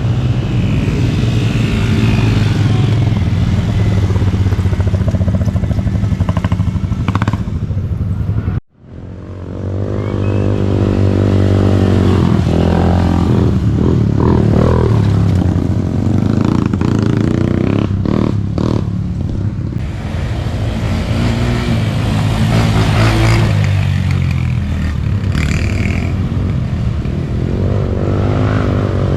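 Small youth ATV engines racing, revving up and down as the quads ride. The sound breaks off abruptly about nine seconds in, then returns.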